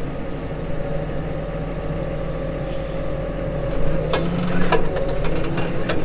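Case Maxxum 150 tractor engine running steadily under load while pulling a four-furrow Kverneland plough, heard from inside the cab. There are a couple of sharp clicks about four seconds in.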